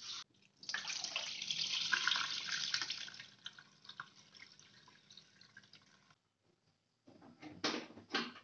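Water splashing into a steel sink as cloudy rice-rinse water is poured out of a rice cooker's inner pot, loud for a couple of seconds and then dwindling to a trickle. Near the end come a few short knocks as the pot is handled.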